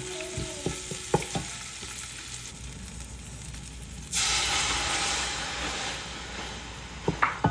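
Food frying and sizzling in oil in a cooking pot while being stirred, with a spoon clicking against the pot. About four seconds in, the sizzle suddenly gets louder, then fades over the next couple of seconds. More spoon clicks come near the end.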